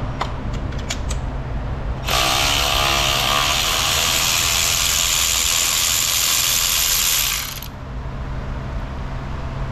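Cordless electric ratchet whirring for about five and a half seconds as it spins a spark plug out of the engine's cylinder head, starting and stopping abruptly. A few light clicks come before it as the socket and extension are fitted.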